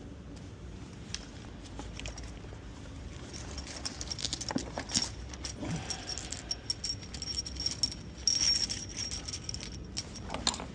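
Small metal tools clinking and jangling as they are handled, with a run of short sharp clicks and a thin high ringing that grows busier about four seconds in.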